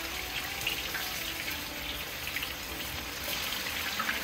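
Dough dumplings deep-frying in hot oil in a large pot: a steady sizzle with many small crackles.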